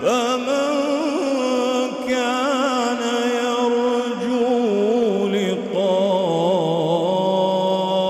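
A man reciting the Quran in the melodic Egyptian style, drawing a word out into one long ornamented phrase with wavering vibrato and sliding turns of pitch.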